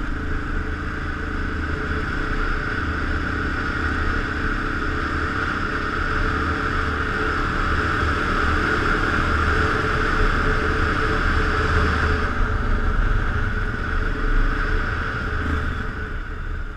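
Kawasaki KLR dual-sport motorcycle's single-cylinder engine running at a steady cruising speed on a dirt track, with wind rush over a helmet-mounted camera.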